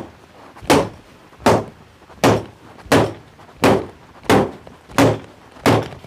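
Hammer blows struck at a steady pace, about one every 0.7 s, eight sharp strikes in all, beating the mix into a mould so that it takes the relief imprint.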